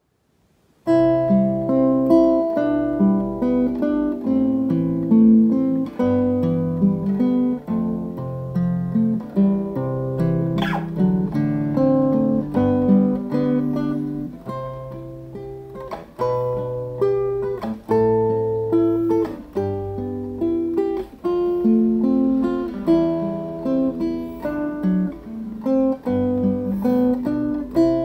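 Nylon-string classical guitar played solo, plucked with the fingers: a slow melody over bass notes, starting about a second in.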